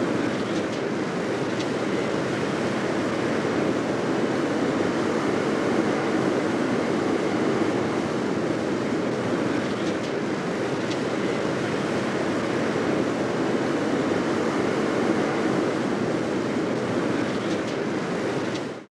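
Steady rumble of a jet aircraft in flight, an even unbroken noise with no change in pitch.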